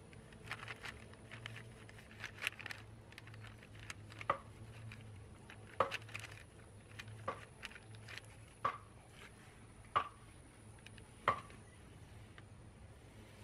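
Fillet knife slicing the skin off a fish fillet on a wooden cutting board. Scratchy scraping and small clicks come first, then a run of short sharp clicks about every second and a half as the blade works along the skin.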